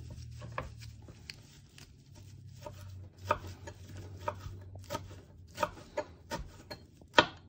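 Kitchen knife chopping fresh parsley on a cutting board: irregular taps of the blade striking the board, sparse at first, then louder and more frequent after about three seconds.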